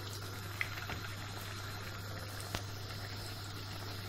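Potato and mozzarella patties frying in a pan of hot oil: a steady sizzle with a couple of sharp crackles, one about half a second in and one past the middle, over a steady low hum.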